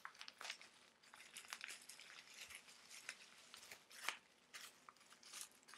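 Faint crinkling and crackling of plastic bubble wrap being pulled off a small kit bracket by hand, in scattered bursts, a little louder about four seconds in.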